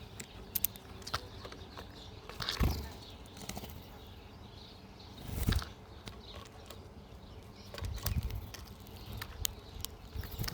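Wild birds at a backyard feeder: scattered short chirps and sharp little clicks, with two louder flurries of wing flapping about two and a half and five and a half seconds in, and a busier spell near the end.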